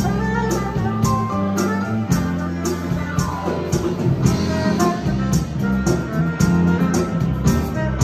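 Live R&B band playing: a Roland keyboard, an electric bass and a drum kit keeping a steady beat.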